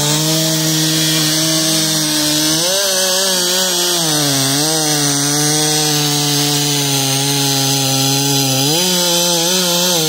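Gasoline chainsaw running at full throttle while bucking a felled tree trunk into rounds. Its engine note sags briefly under the load of the cut about four and a half seconds in and again near the end.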